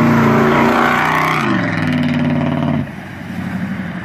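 Pickup truck engine revving hard as the truck drives past on a dirt road, its note dropping in pitch as it goes by. The sound falls off suddenly near the end, leaving a quieter engine sound as the truck pulls away.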